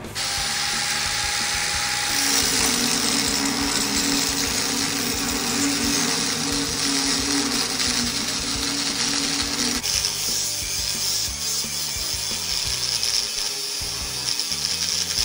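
A power tool running steadily, with a pulsing low hum for several seconds in the middle.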